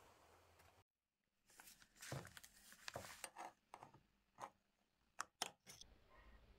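A flat metal opener key working the plastic cap off a metal oil tin: a run of scraping crackles and clicks, with two sharp clicks about five seconds in.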